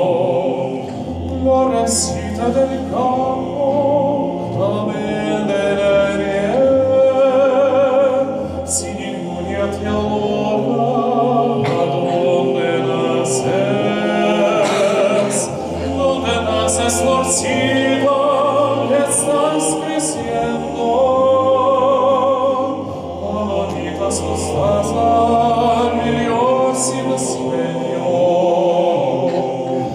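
Men's choir singing a cappella: a solo male voice with vibrato carries the melody over sustained chords and deep bass voices.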